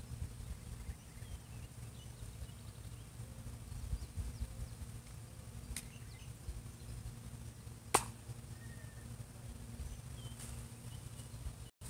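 Outdoor ambience: low wind rumble on the microphone with faint bird chirps, broken by a faint click about six seconds in and a sharper, louder click about eight seconds in.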